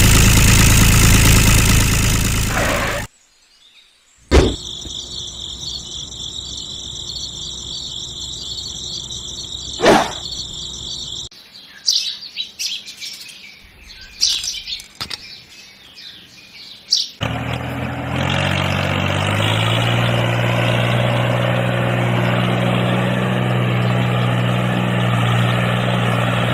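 Music ends about three seconds in, followed by a steady high whine with chirps. Clicks and taps of small parts being handled come next. About two-thirds of the way through, a toy tractor's small motor starts, rising briefly in pitch, then runs steadily.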